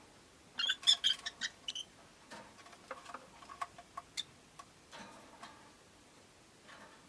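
Rosy-faced lovebirds making short sharp chirps and clicks: a quick loud flurry about half a second in, then scattered quieter ticks.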